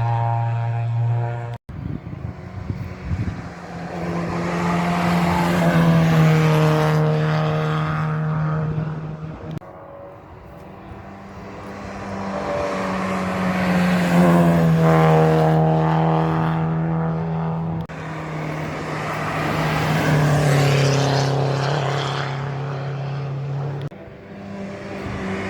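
Historic racing cars' engines passing one after another at full throttle on a hill climb, about five cars in turn. Each engine climbs in pitch as it revs through a gear and drops at the shifts, and each pass breaks off abruptly into the next.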